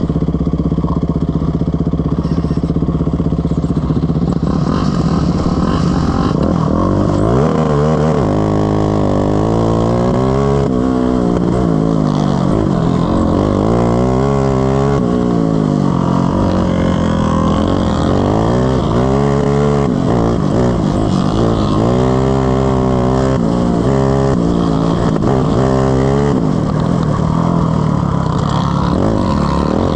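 Racing ride-on mower's engine at race pace, running fairly steadily at first, then revving up and dropping back over and over, every two to three seconds.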